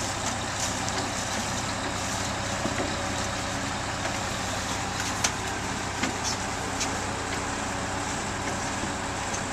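Engine of a heavy vehicle running steadily, with a few sharp knocks near the middle.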